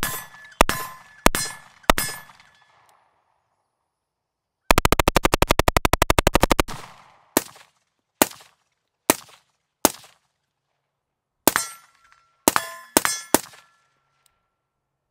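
Short-barreled 5.56 MK18 rifle firing, partly through an Energetic Armament Ferox suppressor. There are four quick single shots, then a full-auto burst lasting about two seconds in the middle, then spaced single shots and a fast string near the end. Several of the shots are followed by a short metallic ring.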